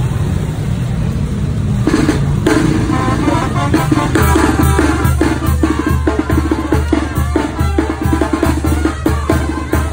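Motorcycle engines running as the bikes pass close by, then music with drums starts about two seconds in, with a steady bass drum beat from about four seconds in that dominates the rest.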